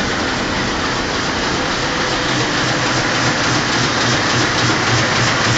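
Print-shop machinery running: a steady, dense mechanical clatter and hiss. A low pulse beats about three times a second in the second half.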